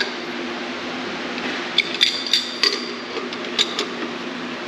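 Sharp metallic clinks with a ringing high tone, a handful in two quick groups from about two seconds in, as the end mill holder is handled in the boring mill spindle. Under them runs the steady hum of the machine.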